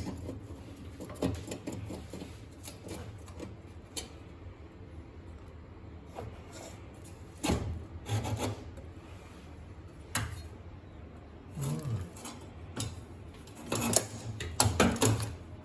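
Rubbing and scraping on gas range parts during a repair, with scattered knocks and clicks, clustered most thickly near the end.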